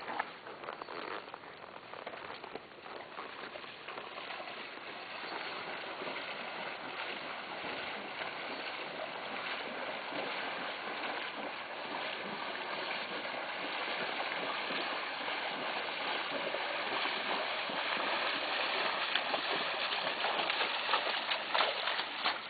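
Horses wading through shallow creek water, their legs splashing and churning the water steadily. The splashing grows louder as they come closer, with a few sharper splashes near the end.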